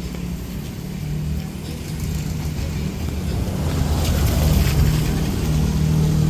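A motor vehicle's engine running close by with a steady low hum, growing louder toward the end as it draws nearer.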